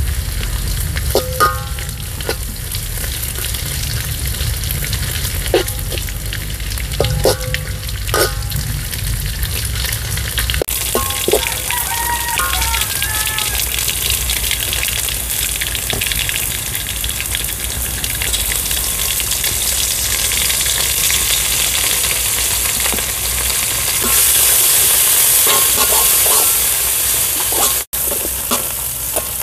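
Sliced aromatics frying in hot oil in an aluminium wok, a steady sizzle, with a metal spatula stirring and now and then clicking against the pan. The sizzle grows louder near the end.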